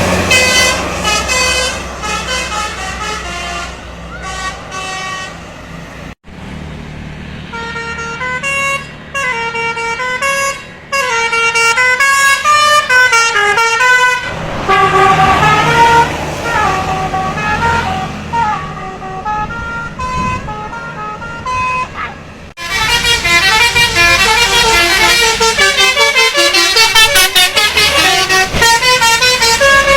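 Indonesian bus 'telolet' multi-tone musical horns playing quick melodic tunes, the notes stepping up and down in pitch, over the low running of the bus engines. The sound breaks off sharply about six seconds in and again a little past twenty-two seconds, a new horn tune starting each time.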